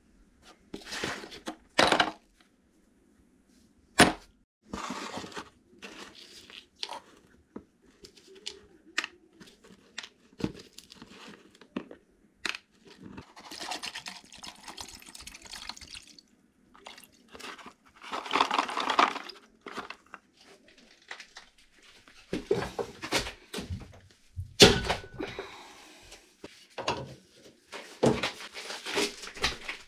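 Hand work on an old hydraulic bottle jack: irregular knocks, clinks and scrapes of metal parts, with two longer scraping, rushing stretches in the middle and the sharpest knock a little before the end.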